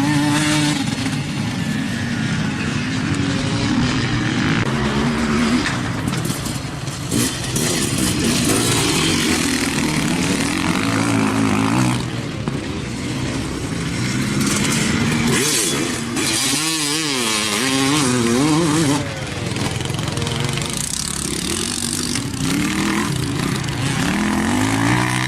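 Off-road vehicle engines revving and dropping back again and again, their pitch rising and falling with throttle, over a constant noisy rush.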